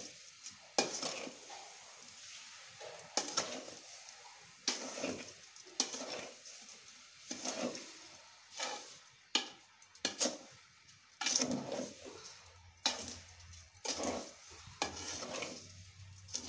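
A metal spoon stirring and scraping through raw mango pieces and sugar in a steel bowl over a wood fire, in repeated strokes about once a second, as the sugar heats for sweet mango pickle.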